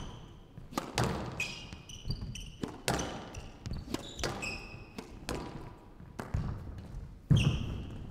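Squash rally: the ball struck by rackets and smacking off the court walls about once a second, with short high squeaks of players' shoes on the court floor between the hits. The loudest hit comes near the end.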